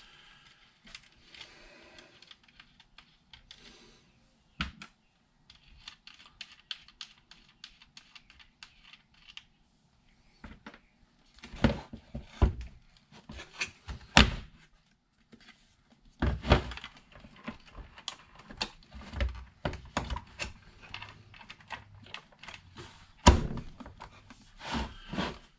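A lithium battery being handled and set into the opened plastic case of a jump-starter box: a string of knocks, clicks and thunks, busiest in the middle, with one sharp knock near the end.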